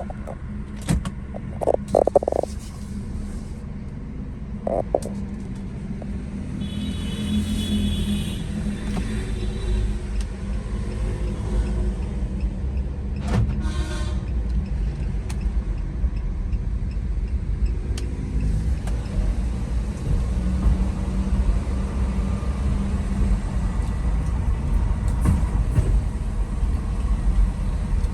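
Chevrolet Cruze 1.8 being driven on a test run after transmission work: a steady low engine and road rumble that grows louder about six seconds in as the car picks up speed. A few short knocks come in the first few seconds.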